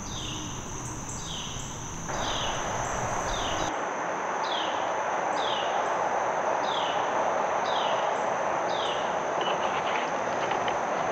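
Evening woodland insect chorus: a steady high-pitched drone with a short falling chirp repeated about once a second, over a hiss that grows louder about two seconds in.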